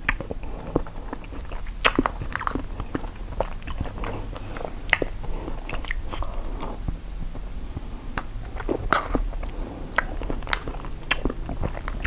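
A man chewing a mouthful of Japanese rice topped with soy-marinated crab roe, close to the microphone: a steady run of irregular soft clicks and smacks of the mouth.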